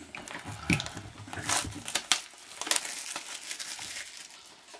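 Plastic shrink-wrap on a trading-card box crinkling and crackling in short, irregular bursts as hands handle and pick at it.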